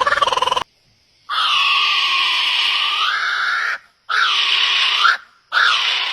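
A bird giving harsh, screeching calls: one long call of about two and a half seconds, then two shorter ones. About half a second in, a different rapid pulsing call cuts off before them.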